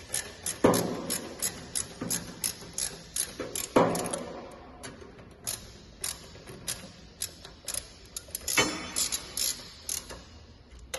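Socket ratchet clicking in repeated short strokes as bolts are snugged down, with louder metal knocks about a second in, near four seconds and near nine seconds. The clicks come a few to the second and spread out in the second half.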